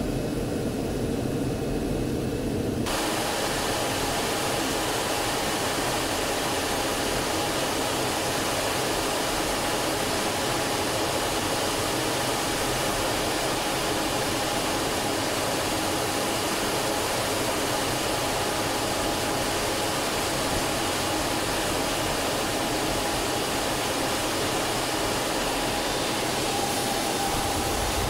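Steady jet-engine and airflow noise inside the cockpit of an L-39 Albatros trainer in flight, from its Ivchenko AI-25TL turbofan: an even rushing hiss with a faint steady whine. About three seconds in the sound changes abruptly from a duller rumble to a brighter hiss.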